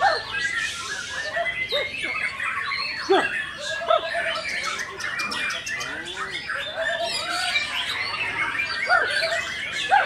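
Dense chorus of many caged songbirds singing at once, a white-rumped shama among them: overlapping whistles, chirps and harsh squawky calls with no pause.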